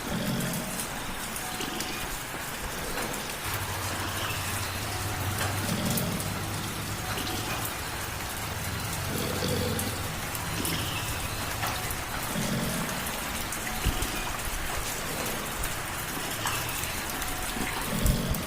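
Steady light rain pattering, with a cat purring low underneath in slow breath cycles.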